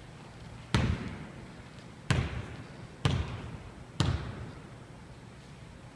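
A basketball bounced four times on a hardwood gym floor, about a second apart, each bounce echoing in the hall. It is a player dribbling in place before a free throw.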